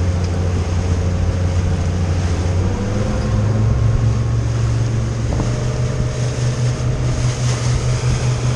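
Motorboat engine running underway, its pitch stepping up about three seconds in and again about halfway through as the throttle is pushed forward, with wind and water rushing past.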